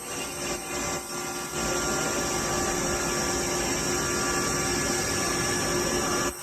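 Spindle of a Hardinge Quest GT-27SP CNC lathe running unloaded at about 3,000 RPM during a spindle test. It makes a steady whine of several held tones over a mechanical hum, with a brief dropout near the end.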